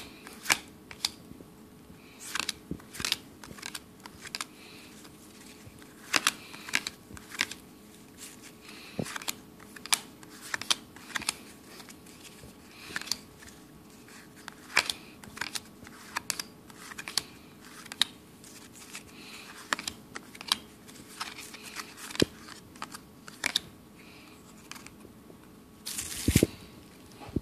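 Trading cards flipped through by hand one at a time, each card slid off the stack with a short papery flick, roughly one a second at an uneven pace, with a louder rustle of cards near the end.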